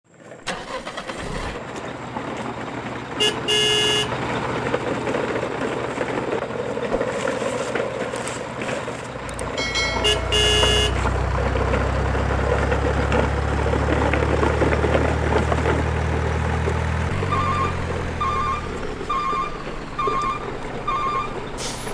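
Truck engine running, with a low rumble that swells in the middle and drops away after about three quarters of the way through, two short horn toots, and near the end five short evenly spaced beeps, about one a second.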